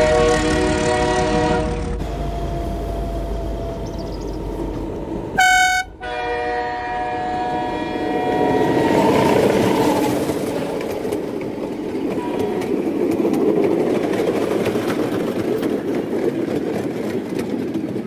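Diesel locomotive sounding its horn as it pulls into the station: a horn call in the first two seconds, a short very loud blast about five seconds in and a longer call after it. Then the engine and coaches roll past with a steady rumble and wheel clatter.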